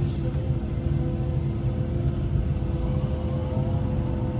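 Cat 312E L excavator's diesel engine running under working load with a steady low rumble and held tones, as the bucket lifts spoil out of a ditch and swings over to the bank.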